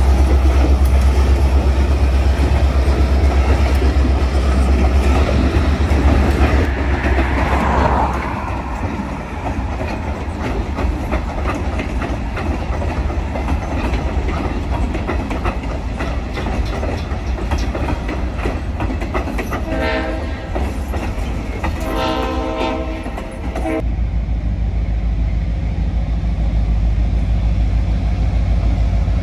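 Diesel freight train passing: a heavy low locomotive engine rumble at first, then the freight cars rolling by with wheels clicking over the rail joints. About two-thirds through, the locomotive horn blows twice, the second blast longer. Near the end the sound changes to a steady low diesel engine rumble.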